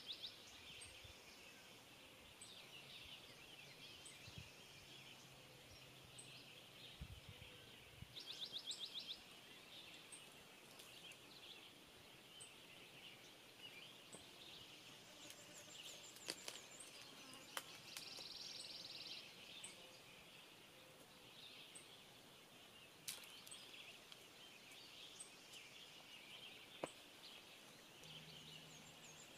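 Quiet woodland ambience with distant birds singing, including two short rapid trills. A few soft clicks sound in the second half.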